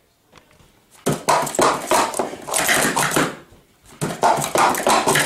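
Hard plastic sport-stacking cups clattering in fast runs of taps and clicks as they are stacked up and down on a mat. There are two runs of about two seconds each, with a short pause between them.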